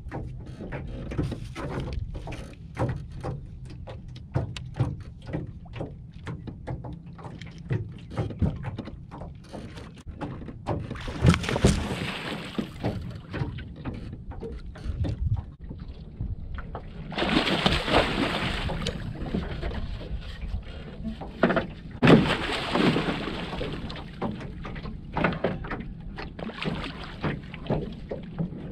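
Water splashing and sloshing beside a small jon boat as a hooked catfish thrashes at the surface and is brought alongside. Quick clicks and knocks come first, then three louder bursts of splashing, the first about a third of the way in.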